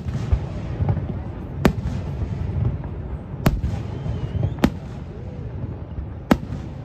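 Aerial fireworks shells bursting: five sharp bangs about one to two seconds apart, over a steady low rumble.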